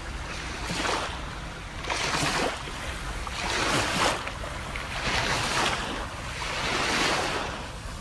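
Small sea waves lapping and washing up onto a sandy beach, swelling and receding about five times, one wash every second and a half or so.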